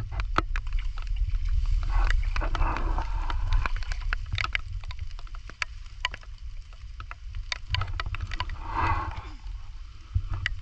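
Close handling of a live mud crab as its claws are tied with string: many quick clicks, ticks and rustles from the shell, claws and string, over a steady low rumble.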